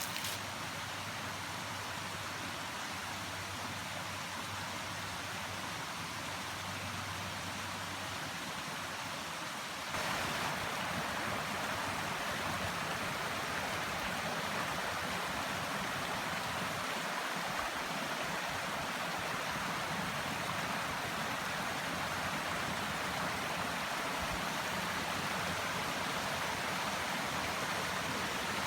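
Steady rush of running water, which gets louder about ten seconds in.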